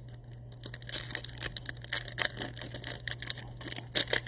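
Wrapper of a trading card pack being torn open and crinkled by hand: a dense run of crackles starting about half a second in, with a couple of louder snaps near the end.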